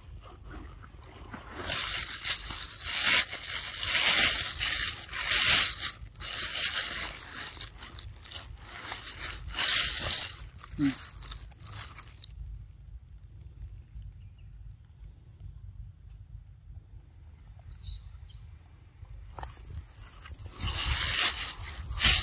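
Irregular rustling and crunching as a macaque handles and bites a papaya in the grass, over a steady low rumble. It goes quieter for several seconds past the middle, and the rustling picks up again near the end.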